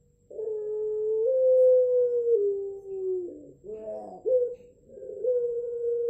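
Puter pelung, the long-voiced variety of the Barbary dove, cooing. It gives a long drawn-out coo that steps up and then down in pitch, breaks roughly for a moment about four seconds in, and then starts another long coo.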